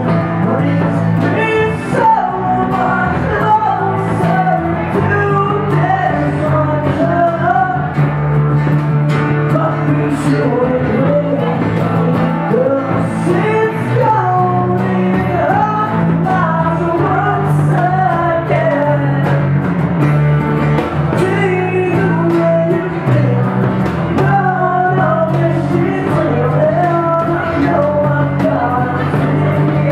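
Live band playing a pop punk song in an acoustic arrangement: strummed acoustic guitars and a drum kit with cymbals, under a lead voice singing.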